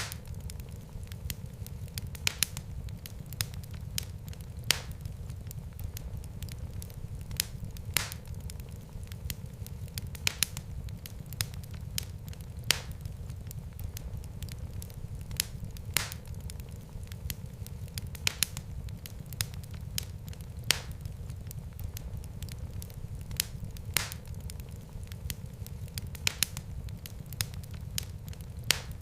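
Fire crackling in a fireplace: a steady low rumble of flames with sharp pops and snaps every second or two.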